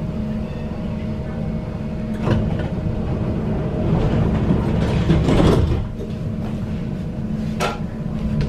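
Tram running, heard from on board: a steady low rumble and even hum, with two sharp clicks and a louder swell of rattling noise in the middle.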